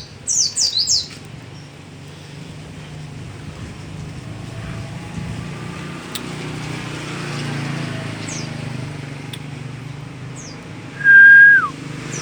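Bird calls: a quick run of high, downward-sweeping chirps in the first second, a few faint single strokes later on, and near the end one loud whistled note, held for about half a second before it drops in pitch. A low steady rumble lies underneath.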